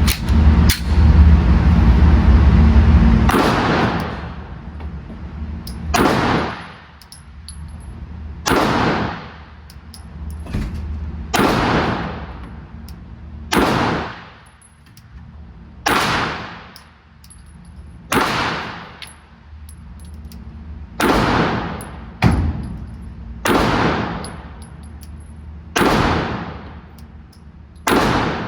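Glock 45 9mm pistol fired slowly at a paper target, about a dozen single shots, roughly one every two to three seconds, each with a sharp crack and a ringing echo off the range. A loud, low rumbling noise fills the first three seconds.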